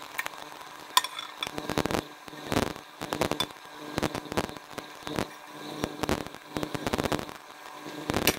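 Silicone spatula scraping ginger paste out of a bowl and spreading it over a fish on a steel steaming plate: irregular soft wet scrapes and light taps, with a sharp tap about a second in, over a steady faint hum.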